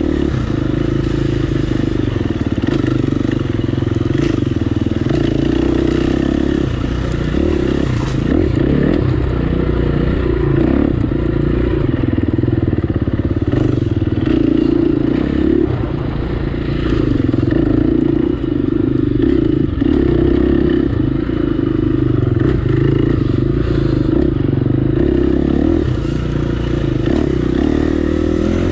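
Dirt bike engine running hard along a wooded enduro trail, its pitch rising and falling with the throttle.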